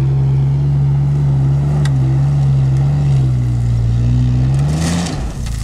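SUV engine running hard at high, nearly steady revs under full throttle as the vehicle climbs a loose sandy slope. Near the end the revs rise briefly, then drop away as the climb stalls.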